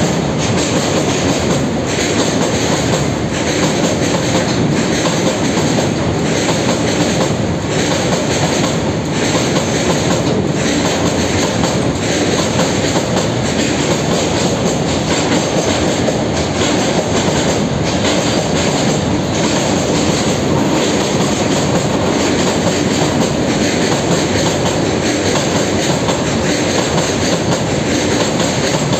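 Freight train wagons rolling across a steel girder bridge: a loud, steady rumble, with wheels clacking about every second or so.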